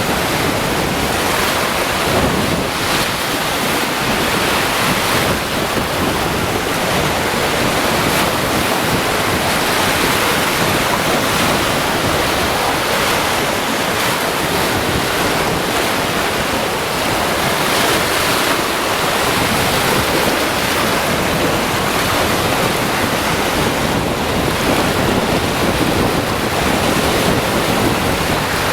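Caspian Sea waves washing onto the beach in a steady loud rush, with wind buffeting the microphone.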